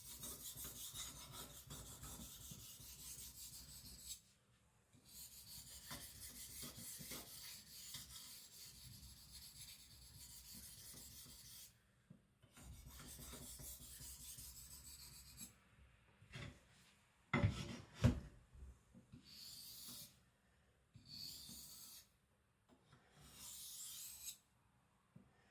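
75Cr1 carbon-steel knife blade stroked along a 3000-grit whetstone with only the knife's own weight, refining the edge: long, steady scraping strokes, then shorter separate strokes. Two sharp knocks, the loudest sounds, come about two thirds of the way through.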